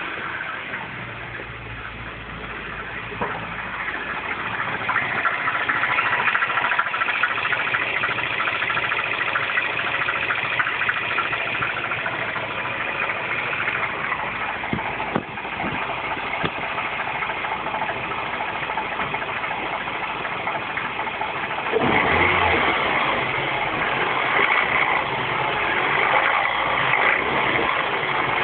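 R56 Mini Cooper S 1.6-litre turbocharged four-cylinder engine running cold, with a fast, busy ticking rattle over the engine sound; it gets louder over the first few seconds and steps up again about 22 seconds in. The owner ties the cold-engine noise to the tensioner, the timing chain tensioner typical of this engine.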